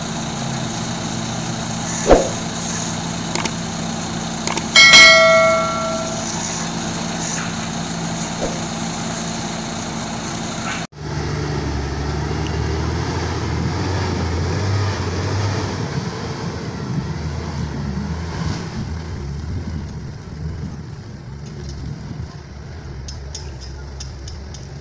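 Concrete mixer truck's diesel engine running steadily, with one horn blast lasting about a second, the loudest sound, about five seconds in. Partway through, the sound changes to the rumbling engine and tyre noise of a mixer truck driving along a road.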